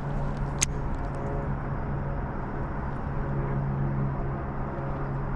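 A steady low motor drone with one sharp click about half a second in.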